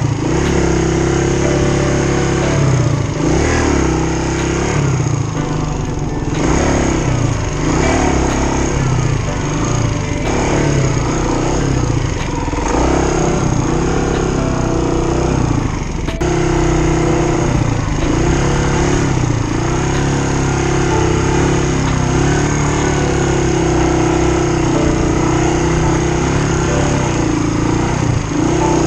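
Kawasaki KLR250 single-cylinder four-stroke engine running under way, its revs rising and falling over and over as the bike accelerates and backs off.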